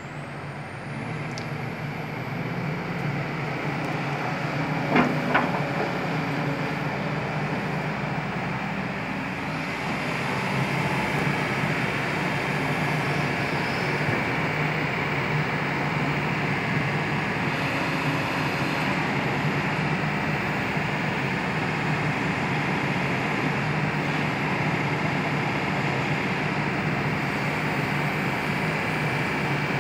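Kobelco SK200 hydraulic excavator's diesel engine running steadily, getting louder over the first ten seconds, with two sharp clicks about five seconds in.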